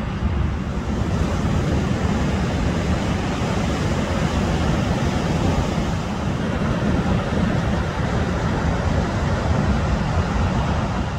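Ocean surf breaking and washing up the beach, with wind buffeting the microphone into a steady rumble.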